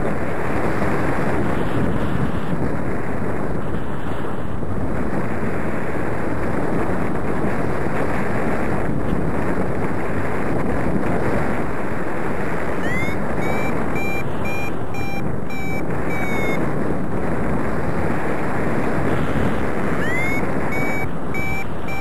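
Steady rush of wind on the microphone of a paraglider in flight. Twice, a variometer sounds its climb tone over it: a short rising chirp, then a run of short beeps at a steady pitch, about two-thirds of the way through and again near the end, signalling that the glider is climbing in lift.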